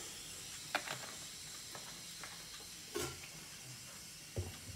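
Faint steady hiss from a lit gas stove burner under a cast iron kadai with a little oil heating in it. A few light clicks and knocks break in, about a second in, at about three seconds and near the end.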